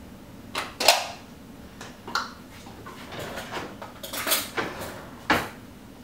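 Irregular clattering of kitchen utensils against a stainless steel mixing bowl: about half a dozen short knocks and scrapes, the loudest about a second in.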